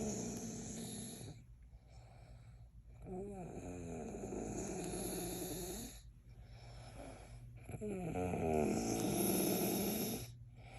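A man snoring in sleep, a snore about every four seconds. Each snore has a low rattling tone that wavers in pitch, with a high hiss sounding at the same time, so two snoring sounds come at once. The last snore fades away near the end.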